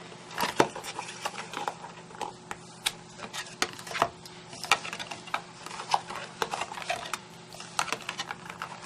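Stiff cardstock being handled and pressed into place while a card box is assembled: irregular light taps, clicks and crackles of card, several a second, over a faint steady hum.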